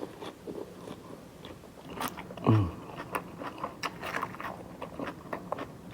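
Close-up chewing of crunchy salad, iceberg lettuce and crispy fried chicken, with many quick small crunches and mouth clicks. A short low voiced sound from the eater comes about two and a half seconds in.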